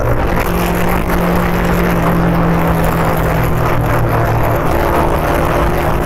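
Motorcycle engine running at a steady cruise, with wind and road noise; its note drops a little about halfway through.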